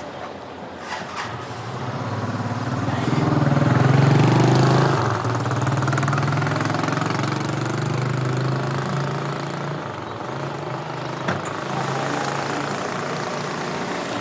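A motor vehicle's engine running, swelling over the first few seconds and then holding steady.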